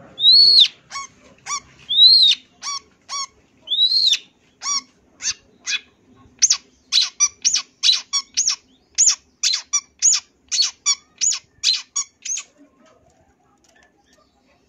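Long-tailed shrike (cendet) singing loudly: three high arched calls mixed with short sharp notes, then a fast run of sharp notes about three a second that stops near the end.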